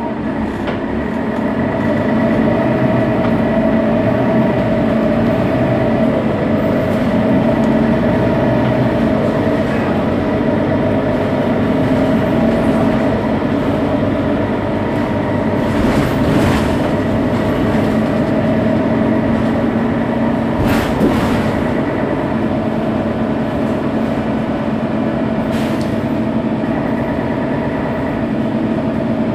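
Mercedes-Benz Citaro bus's OM 457 hLA inline-six diesel idling steadily at a stop, heard from behind, with a steady whine over the engine note. There are a few brief hisses around the middle.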